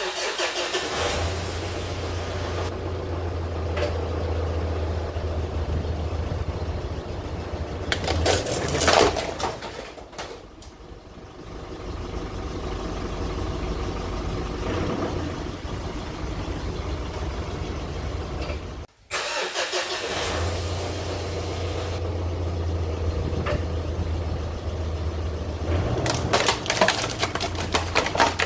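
Ute's engine running with a steady low hum, with loud noisy bursts about eight seconds in and again near the end as the ute is driven over the printer to crush it.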